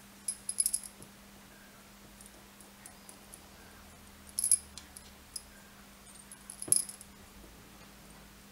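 Small brass parts clicking and clinking against each other as they are handled and fitted together in the fingers, in three brief clusters of sharp metallic ticks.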